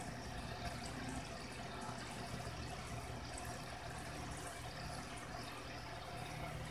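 Steady low hum with an even, faint watery hiss and a few faint ticks.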